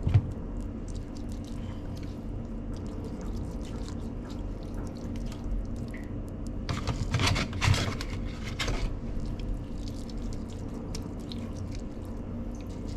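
Wet, squishy handling of raw fish and seasoning paste with small scattered clicks, over a steady low hum. A louder rushing noise comes in for about two seconds past the middle.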